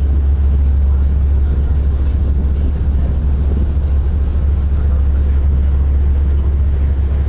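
Steady low rumble of a passenger ferry under way, with wind buffeting the microphone on the open deck.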